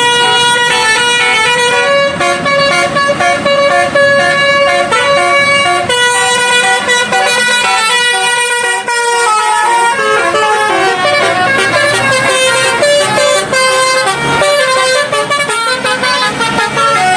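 Bus 'telolet' horn, a multi-note musical air horn, playing a tune: loud horn notes stepping up and down in pitch one after another, with no break.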